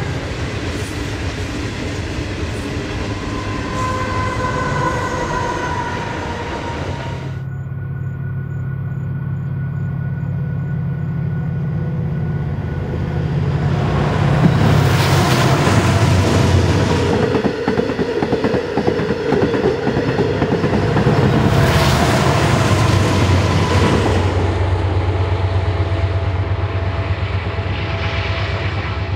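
Loaded iron ore trains passing: the ore wagons roll by with wheels clacking and thin squealing tones. Then diesel-electric locomotives hauling under power go by with a steady deep engine drone that swells loud twice as the units pass.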